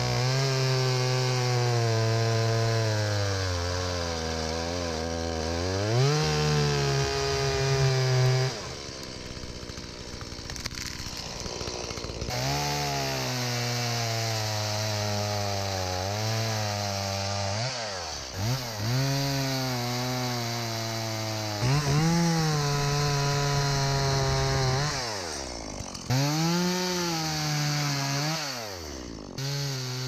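Stihl MS170 two-stroke chainsaw cutting dry tamarack (larch). Its engine pitch sags as the chain bites and climbs again as it frees up, several times over. About a third of the way in there is a quieter lull of a few seconds before the cutting resumes.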